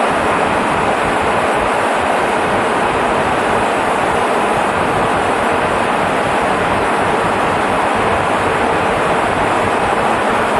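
Steady cabin noise of a Boeing 707 in cruise, its turbofan engines running, heard inside the cabin by a window.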